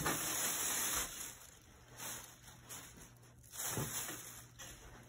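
A plastic shopping bag crinkling and rustling as handfuls of fibre pillow stuffing are pulled out and pushed into a pillowcase. Loudest in the first second, with shorter rustles about two and about four seconds in.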